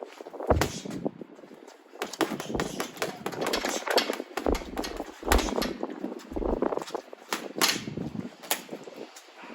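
Boxing gloves thudding into a punch bag in an irregular run of punches and quick combinations, with sharp slaps among the duller hits.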